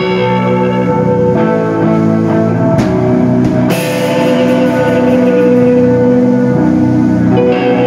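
Live rock band playing: guitars holding ringing chords over a drum kit, with a cymbal crash just under four seconds in.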